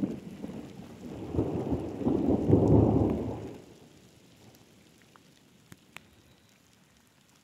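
Rolling thunder rumbling, building to its loudest about three seconds in and dying away by about four seconds, leaving only faint rain falling on the lake.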